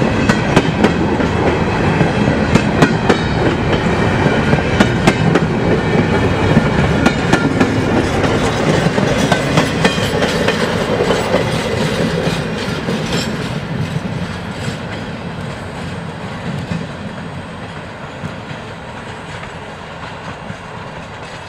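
Long freight train rolling past, its wheels clicking over rail joints. The sound fades steadily over the second half as the train moves off.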